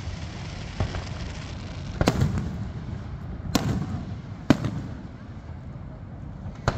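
Fireworks display: shells bursting with sharp bangs every second or two, four of them loud and one faint, each trailing off in a rumbling echo.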